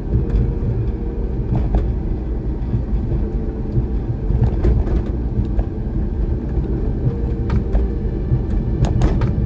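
Car driving heard from inside the cabin: a steady low rumble of engine and road noise, with a few light clicks and knocks scattered through it.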